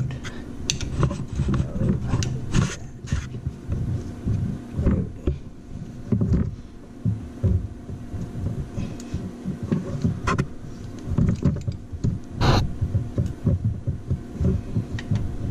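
Hands and tools working on a Subaru WRX STI's engine belt drive: irregular knocks, clicks and rubbing as the crank pulley is turned to draw the rear-side drive belt onto the A/C compressor pulley with a belt guide.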